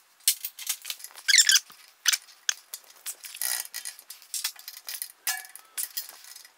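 A quick run of small metal clicks, scrapes and squeaks as the screw holding a bandsaw's table-tilt zero pointer is worked loose with a hand tool and the pointer is moved to zero.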